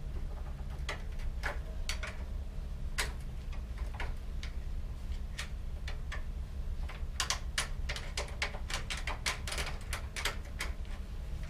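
Irregular metallic clicks and ticks from a hand tool working at the rear axle of a Dutch bicycle, sparse at first and coming thick and fast about seven seconds in.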